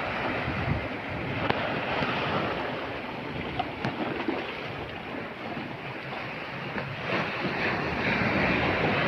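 Heavy sea surf breaking and washing on a beach, with wind buffeting the microphone; the surf grows louder near the end.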